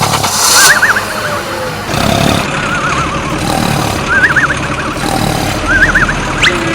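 A small vehicle engine running, with short warbling high tones repeating about every second and a half.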